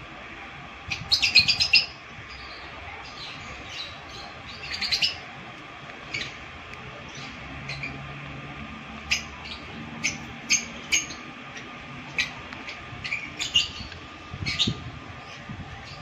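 Lovebirds chirping: a quick run of high chirps about a second in and another at about five seconds, then single sharp chirps every second or so.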